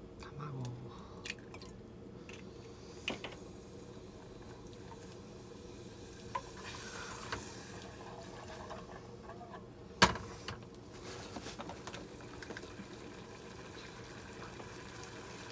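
Egg being beaten with chopsticks in a metal bowl: soft wet stirring with scattered light clicks, and one sharp knock about ten seconds in.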